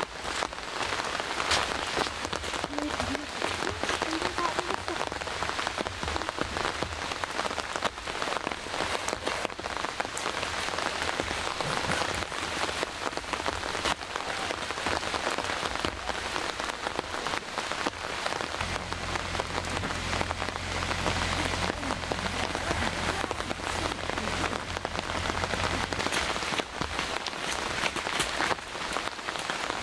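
Steady rain pattering, a dense shower of fine drops. A low steady hum joins in about two-thirds of the way through for several seconds.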